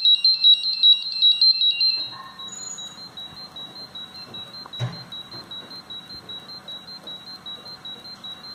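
Crowcon Gas-Pro gas detector's alarm sounder beeping rapidly, about four high beeps a second, set off by the test gas during a bump test. About two seconds in the beeping drops to a much quieter level and keeps on, with a single click a few seconds later.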